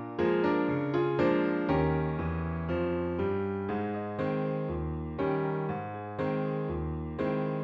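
Background music: a gentle electric piano playing a steady run of chords, each one struck and left to fade.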